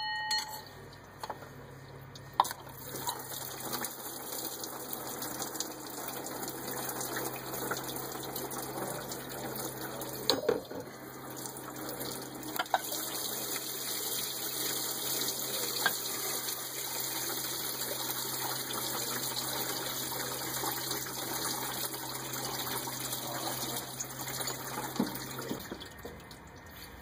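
Engine coolant pouring and splashing into a bucket as the water pump is pulled off a Dodge Ram's 4.7 L V8 with the cooling system undrained. It is a steady stream that builds a few seconds in and tails off near the end, with a few clicks and knocks of metal parts.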